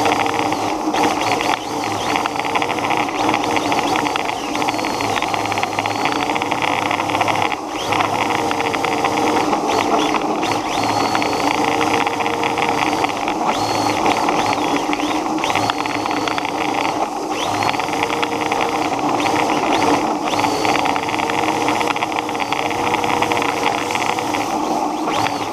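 Small RC car driving on pavement: a steady hiss of its drivetrain and tyres, with a motor whine that rises and falls in pitch again and again as the throttle and speed change.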